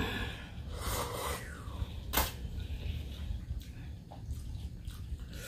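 A person slurping and chewing instant noodles: a breathy slurp about a second in, then a sharp click about two seconds in, over a steady low hum.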